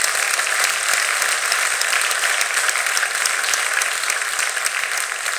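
Audience applauding: dense, steady clapping from a large crowd, easing slightly near the end.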